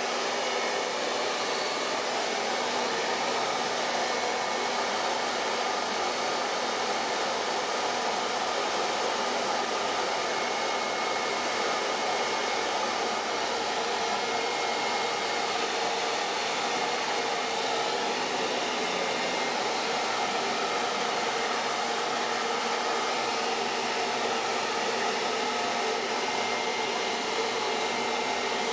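Steady, dense hissing noise that runs without a break, with little bass and a faint high tone that comes and goes within it.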